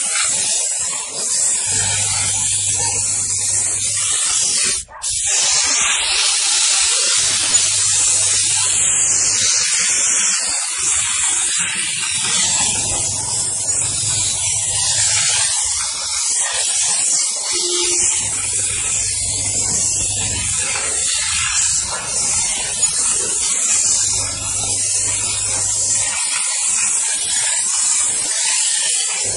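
Steam car-wash machine's spray gun hissing steadily as it jets steam and water onto a car, cutting out for a moment about five seconds in. A low hum from the machine comes and goes underneath.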